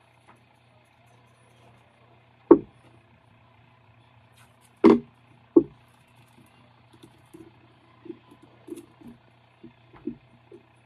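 A glitter tumbler knocking against a wooden tabletop as it is set down and handled: three loud knocks in the first half, then a run of lighter taps and rustling, over a steady low hum.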